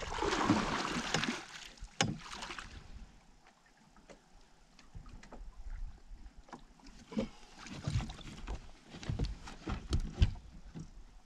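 Water splashing for a couple of seconds as a large northern pike is handled in a landing net at the boat's side, then scattered knocks and thumps as the fish is lifted and handled aboard the boat.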